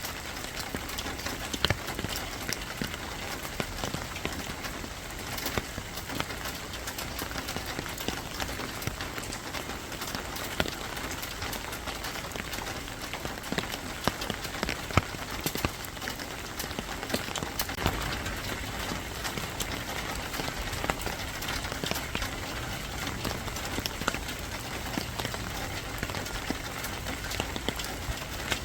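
Steady rain falling, a continuous even patter with many scattered sharp drip ticks.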